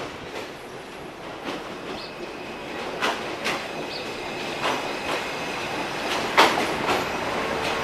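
State Railway of Thailand diesel railcar express pulling into a station, growing louder as it nears. Its wheels click over rail joints at irregular intervals, with a thin high wheel squeal from about halfway through.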